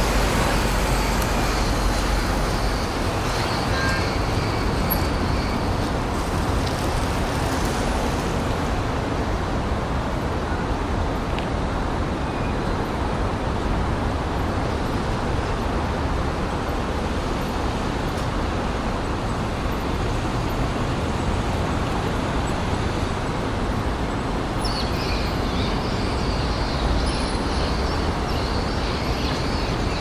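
Downtown city traffic heard from a rooftop: a steady, even wash of distant vehicles. Birds chirp in the first few seconds and again near the end.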